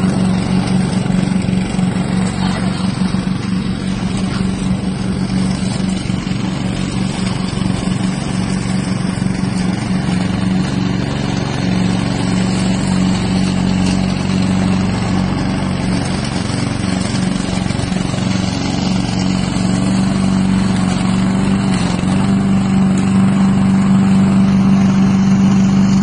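Four-stroke petrol engine of a tracked remote-control mower running steadily under load as it crawls and cuts, with a strong, even hum. It grows a little louder near the end.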